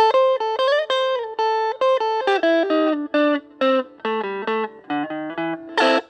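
Outro music: a guitar playing a melody of single held notes, some slid or bent up in pitch, with a fuller, brighter hit near the end.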